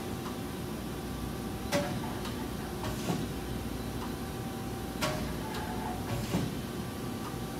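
Steady low machine-shop hum with four sharp metallic clunks, a second or two apart.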